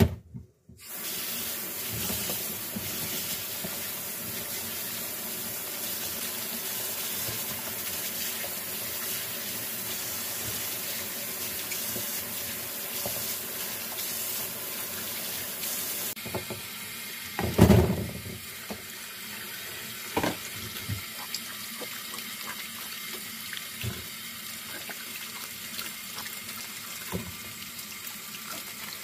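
Kitchen tap running onto green peppers and then small cucumbers as they are rinsed by hand in a plastic colander in a stainless steel sink. The splashing turns softer about halfway through, and a few knocks from handling break through, the loudest just past the middle.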